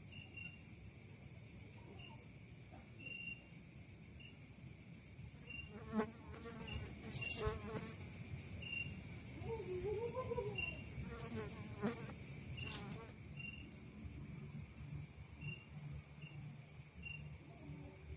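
Insects calling, crickets among them: a steady high trill with a short chirp repeating about once a second. A brief wavering tone rises and falls about halfway through, and a few soft knocks come along with it.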